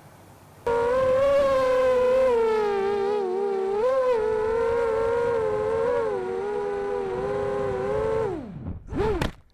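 Racing quadcopter's brushless motors and 5x3 props whining, the pitch wavering slightly as the throttle shifts. Near the end the whine drops steeply as the motors spin down, then rises and falls once more briefly.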